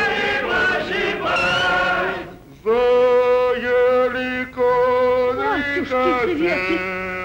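A group of men's voices shouting together in a chant, fading out after about two and a half seconds. Then a single voice sings held notes of a folk-style tune, stepping between pitches, with a falling slide about two-thirds of the way through.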